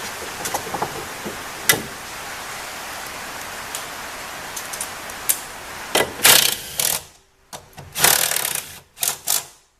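Hand tools working on suspension bolts: scattered clicks of metal on metal over a steady hiss, then a few short, loud rattling bursts about six and eight seconds in.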